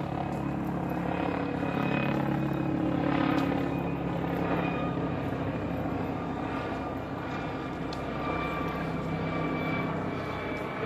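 Helicopter flying overhead, a steady drone of engine and rotor.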